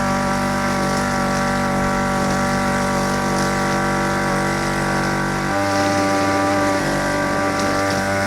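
Small petrol engine of a grass-cutting machine running steadily, its tone shifting abruptly about five and a half seconds in.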